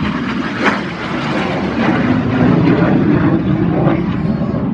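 A fixed-wing aircraft flying past in a loud, noisy rumble that swells to its loudest about halfway through and then eases slightly.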